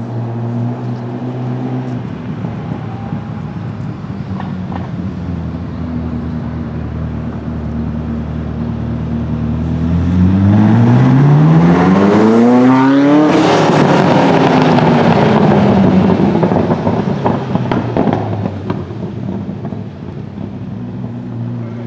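Ferrari engine running at a steady low note. About ten seconds in, a car accelerates hard, its engine note climbing steeply for about three seconds. It then drops in pitch and fades as the car passes and moves away.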